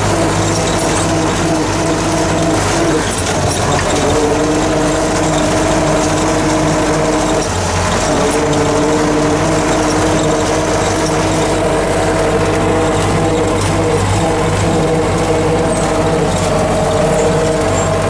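MTZ-50 tractor's four-cylinder diesel engine running steadily under way, heard from inside the cab. The engine note drops briefly and picks up again twice, about three and eight seconds in.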